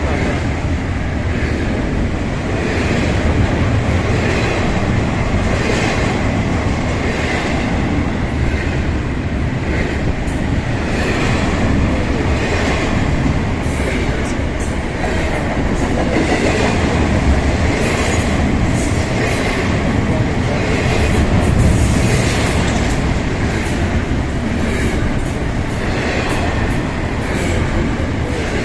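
Ferromex freight train rolling past: a steady heavy rumble of wagons, with wheels clicking over rail joints every second or two.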